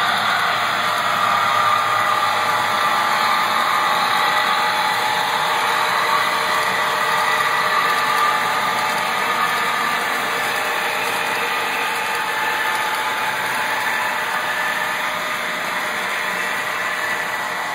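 HO-scale model freight trains running: the steady diesel-engine sound of sound-equipped model locomotives mixed with the noise of the cars rolling on the track, easing off slightly near the end.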